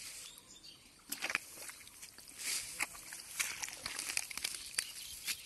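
Hands rummaging through grass and leafy weeds and digging into wet mud: irregular rustling and crackling that starts about a second in.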